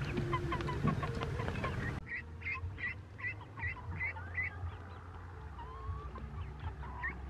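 Chickens clucking at a feed tray, then, after an abrupt cut about two seconds in, ducklings peeping in a quick run of short high calls, about three a second, trailing off into scattered chirps.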